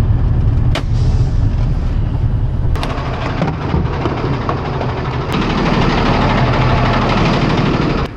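Motor vehicle driving, with a steady low engine and road rumble. The road noise grows louder from about three seconds in, and a few sharp clicks or rattles cut through.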